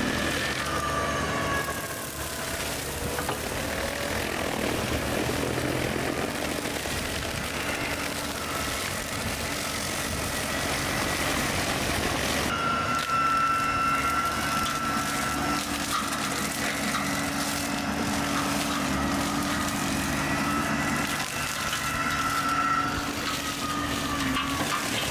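Bobcat E45 mini excavator's diesel engine running steadily with its hydraulic brush cutter spinning, cutting grass and brush. A steady whine sits over the engine and changes pitch about halfway through.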